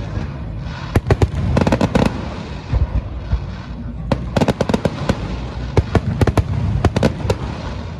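Fireworks bursting in rapid runs of sharp bangs, one cluster about a second in and a longer run from about four to seven seconds in, over a steady low background din.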